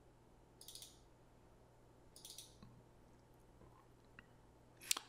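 Faint computer mouse clicking: two short bursts of clicks about a second and a half apart, then a single light click later on.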